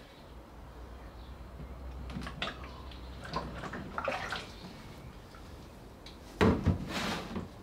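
Linen filter bags and a plastic bucket being handled: scattered rustles and light knocks, then a louder knock about six and a half seconds in.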